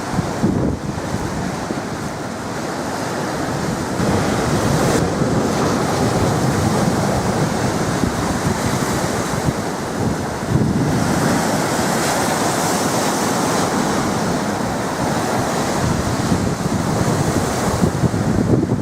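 Storm waves pounding and breaking, a steady loud rush of surf with wind buffeting the microphone. The surf gets louder about four seconds in and swells again about eleven seconds in.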